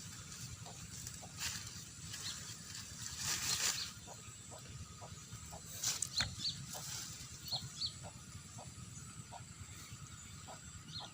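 Outdoor rural ambience with repeated short high chirps, often in pairs, and a run of faint low ticks. Two brief bursts of rustling hiss come about a second and a half in and again around three and a half seconds in.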